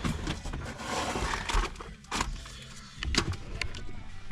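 Irregular clunks, clicks and rustling as the floor covering and loose debris are handled on the rusty cab floor of a Ford Ranger pickup.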